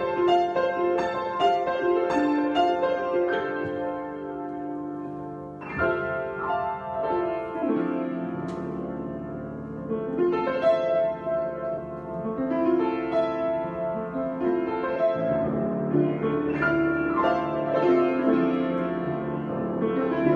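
Improvised solo piano: quick repeated notes over chords at first, then a sudden loud chord about six seconds in, followed by slower, held chords.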